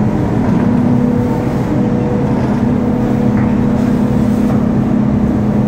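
Tea-processing machinery running: a loud, steady drone of electric motors with a constant low hum.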